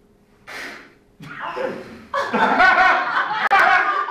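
Laughter: a short breathy burst about half a second in, then laughing voices from about a second in that grow loud and carry through the rest.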